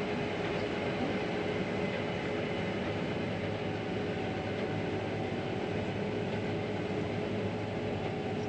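Steady running drone of a combine harvester heard inside the cab while it harvests mustard, with a constant low hum and a steady higher hum over an even mechanical noise.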